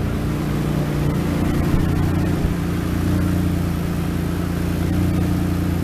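Single-turbo Nissan G35's VQ35DE V6 engine idling steadily.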